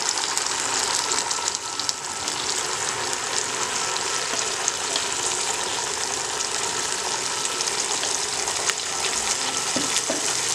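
Hot oil sizzling steadily with small crackles in a nonstick kadai, around a freshly poured wet paste of ground onion, garlic, ginger and red chilli, with whole spices and dried fenugreek leaves frying at its edge.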